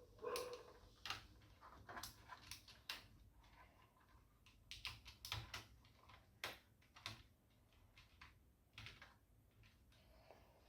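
Faint, irregular plastic clicks and taps of keyboard keycaps being handled and pressed on a TVS Gold Bharat keyboard. A dog barks once right at the start.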